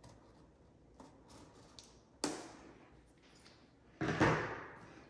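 Scissors making a few light cuts through the seal of a cardboard box, then two sharp knocks, one a little after two seconds and a louder one at about four seconds, as the box and scissors are handled on the table.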